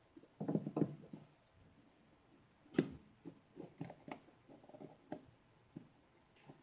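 Small metal parts of a Norinco NP34 pistol's frame and decocker spring being handled and worked into place, giving scattered light clicks and taps. A sharper click comes about three seconds in.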